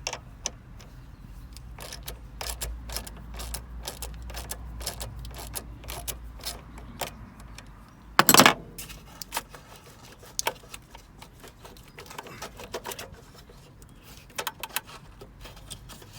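Light metallic clicks, clinks and knocks from hand tools and wiring being handled while working on a van's earth lead, with one louder knock about eight seconds in.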